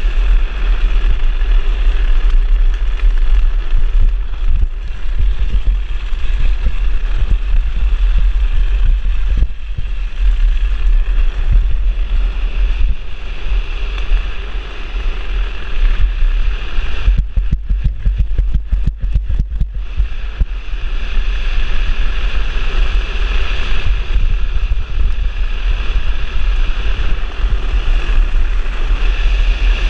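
Wind buffeting the microphone of a drift trike rolling fast downhill, over a steady hiss of its wheels on asphalt. A little past the middle comes a few seconds of rapid rattling knocks.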